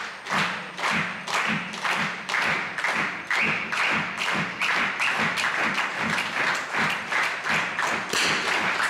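Spectators clapping in unison to a steady beat, about two and a half claps a second, with a low thud on each beat.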